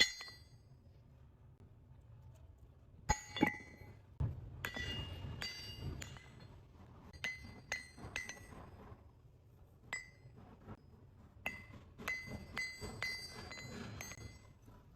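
Pieces of cut steel anchor chain clinking and knocking against each other, starting about three seconds in: irregular sharp metallic clinks, each ringing briefly.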